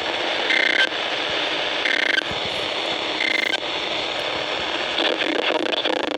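Emergency Alert System end-of-message signal: three short bursts of two-tone digital data squawk, a little over a second apart, marking the end of the alert. Steady radio static hiss underneath, with faint crackle near the end.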